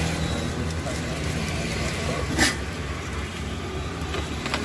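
Steady low rumble of a lit gas burner under an iron griddle, mixed with outdoor background noise. A single sharp clack comes a little past halfway, and another right at the end.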